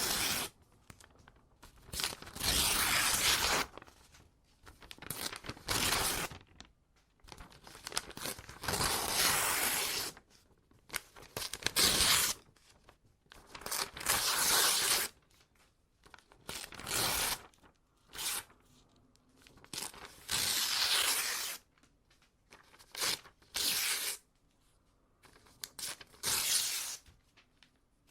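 Paper being ripped by hand, one tear after another: about a dozen separate rips, each a half-second to two-second ripping hiss, with short pauses between.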